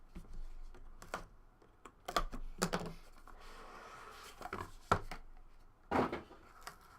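A trading-card box being opened and its contents handled: about half a dozen scattered knocks and clicks of cardboard and plastic card holders being picked up and set down.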